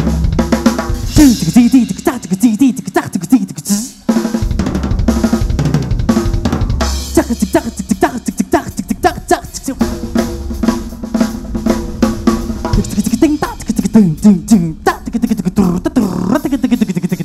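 Drum kit played at full tilt over a pitched musical accompaniment: kick and snare with hi-hat and cymbals, broken by fast tom fills about a second in and again near the end, with a brief drop just before the four-second mark.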